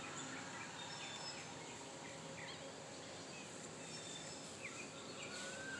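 Outdoor garden ambience: a steady low background hiss with scattered short bird chirps, and one longer whistle near the end.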